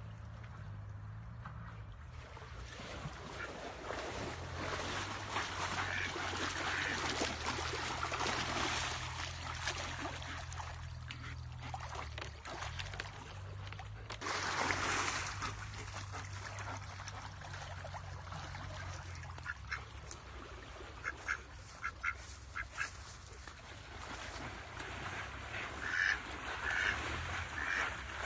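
A duck quacking in short, sharp calls, a run of them about two thirds of the way in and more near the end, over the splashing and rush of water in a muddy stream.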